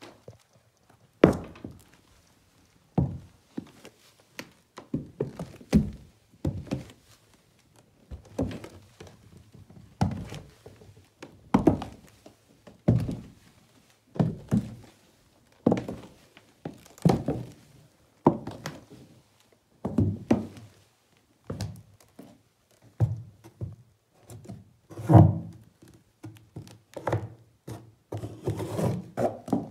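High-heeled leather ankle boots stepping on old bare wooden stairs and floorboards: a slow, uneven series of hollow wooden thunks, about one step a second. The heaviest step lands about 25 seconds in.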